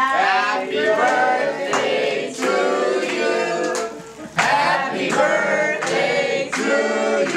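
A group of people singing together in chorus, in sung phrases with a short pause about four seconds in.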